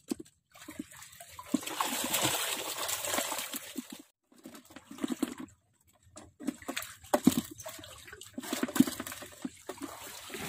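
Shallow water splashing and sloshing as hands and a small hand net are worked through it, in irregular bursts.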